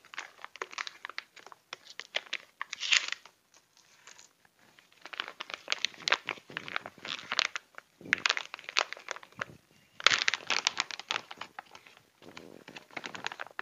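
Clear plastic zip-lock bags of dried root chips crinkling as they are handled and opened, in bursts with short pauses.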